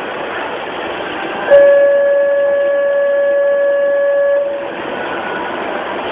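Santiago Metro train's warning signal: one steady tone, starting with a sharp click about a second and a half in and held for about three seconds, over the train's steady running noise.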